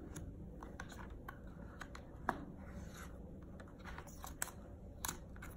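Scattered light clicks and faint scrapes of hands handling a cardboard packaging insert while sliding an Apple Watch sport band out of it, with a sharper click a little after two seconds.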